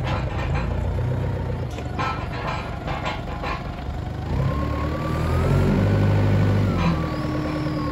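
Heden 4-ton forklift's engine running as the truck drives and turns, with knocks and rattles over the first few seconds. About four seconds in the engine revs up: a rising whine that holds for about two seconds, then falls back to a steady run.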